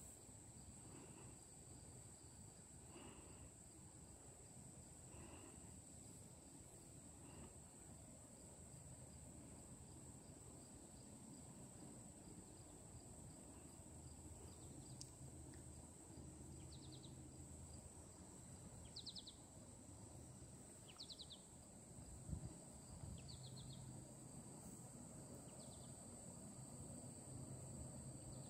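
Faint open-air ambience: a steady high insect drone and a fast insect trill, with short bird calls now and then and a low rumble of wind. A single brief thump about two-thirds of the way through.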